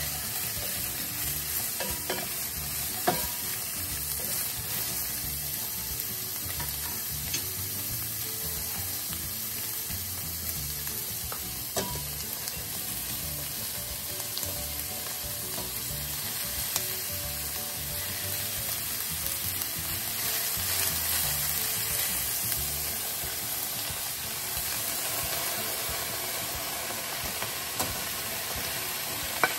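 Vegetables sizzling in hot oil in a stainless steel pan as they are stirred and tossed with a wooden spatula, with a few light clicks of the spatula against the pan.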